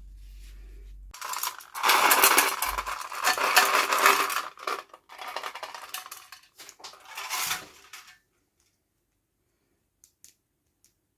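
Plastic toy packaging and small plastic pieces being handled up close, a dense crackling rustle full of sharp clicks. It starts about a second in and stops about eight seconds in, leaving only a few faint ticks.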